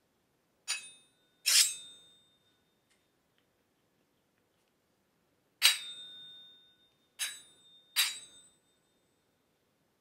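Sword-blade sound effect: five sharp metallic strikes, each with a short bright ring that fades away. Two come close together about a second in, then three more in quick succession near the end.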